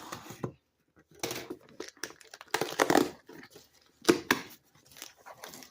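Packaging being crinkled and torn open by hand, in three short bursts of rustling with quiet gaps between them.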